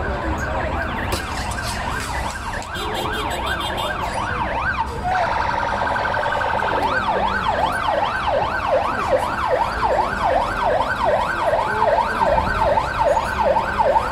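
Emergency vehicle siren on a rapid yelp, its pitch sweeping up and down about three times a second. About five seconds in it briefly switches to a different, steadier pattern, then returns to the yelp and grows louder.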